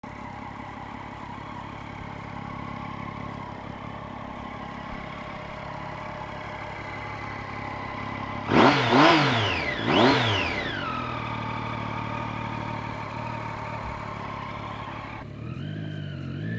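Triumph Street Triple R's 675 cc three-cylinder engine idling steadily, then blipped three times in quick succession about halfway through, each rev rising and falling sharply, before settling back to idle. Near the end the bike pulls away and the engine note rises.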